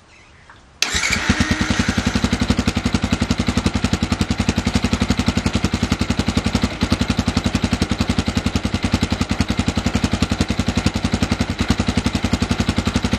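Fantic Casa 125 motorcycle with its stock exhaust starting up abruptly just under a second in, then idling steadily with even exhaust pulses.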